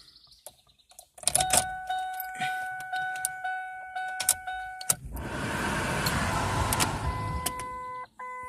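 A 2007 Ford Focus SE being started. Key clicks and a steady dashboard chime, then about five seconds in the 2.0-litre four-cylinder cranks and catches, running for a couple of seconds before settling as a second, interrupted warning chime sounds.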